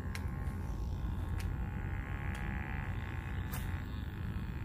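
Open-air ambience: a steady low rumble of wind on the microphone, a faint high insect buzz, and a few light clicks.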